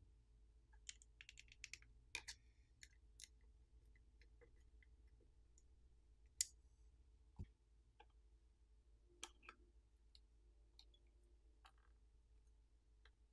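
Faint, scattered small clicks and ticks of the Galaxy S24 Ultra's side buttons being pulled out of the phone's titanium frame by hand, the sharpest about six and a half seconds in.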